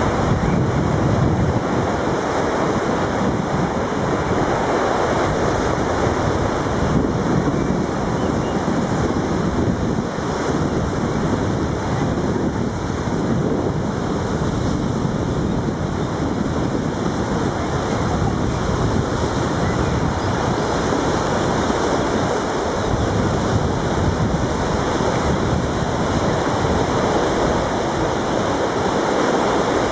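Fast-flowing river water rushing steadily, with wind buffeting the microphone.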